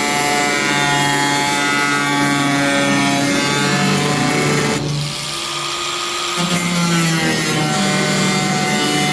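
Handheld power tool cutting through the sheet-metal bed of a 1971 Chevy C20 pickup, running steadily with a pitched whine over a harsh rasp. Just past halfway the cutting noise drops away for about a second and a half, then the tool bites back in.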